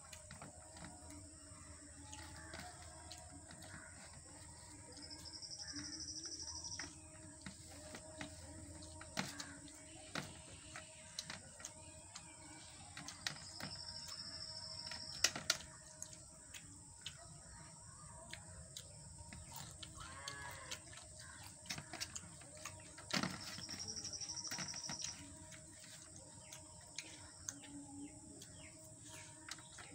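Close-up eating sounds of a man eating rice and mole crab thokku by hand: mouth sounds, chewing and lip smacks with scattered sharp clicks. A thin high steady whine comes three times, about two seconds each.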